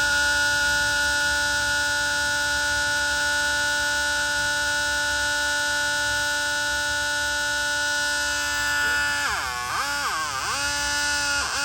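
Homemade 12-volt electronic bicycle siren sounding through its small speaker: a steady electronic tone for about nine seconds, then switching to a wail that sweeps down and back up in pitch several times.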